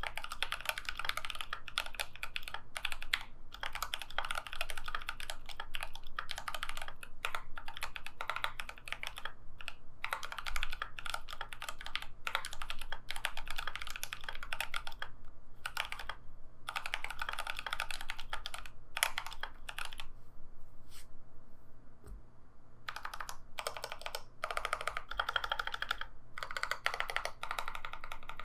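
Typing on a GMMK Pro mechanical keyboard with lightly lubed Durock T1 tactile switches and PBT keycaps: fast, dense runs of keystrokes with brief pauses, thinning to scattered keystrokes about two-thirds through before a fast run resumes.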